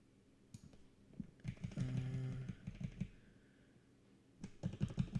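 Computer keyboard typing and mouse clicks, scattered at first, then a quick run of taps near the end. A short, steady low hum sounds in the middle.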